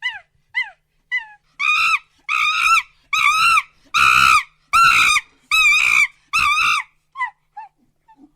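Monkey calling: a few short calls falling in pitch, then a run of about eight longer, louder wavering calls, each about half a second, trailing off into short fainter calls near the end.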